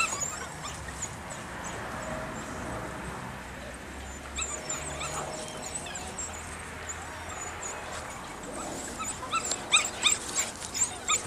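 Six-week-old Belgian Malinois puppies yipping and squealing in short, high-pitched calls, thickest about halfway through and again near the end.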